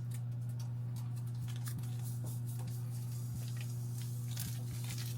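A steady low hum with faint, scattered ticks and rustles of kitchen handling over it.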